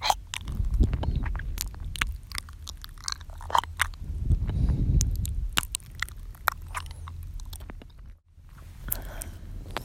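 Close-miked ASMR mouth sounds: a stream of wet clicks and smacks, with two slow breaths swelling against the microphone, and a brief gap about eight seconds in.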